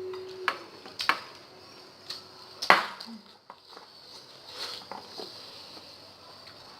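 A few sharp clinks and knocks of eating utensils against dishes, spaced irregularly, the loudest about two and a half seconds in.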